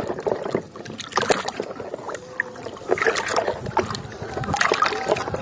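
A muddy toy train being washed by hand in water: irregular splashing and sloshing, with small knocks and rubbing of the toy.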